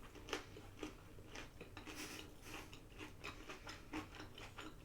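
A person chewing food close to the microphone, with faint, irregular short mouth clicks and smacks.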